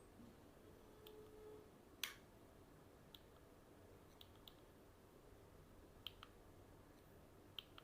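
Near silence with scattered faint clicks and taps from handling a DJI Osmo Mobile SE smartphone gimbal, about eight in all, the sharpest about two seconds in.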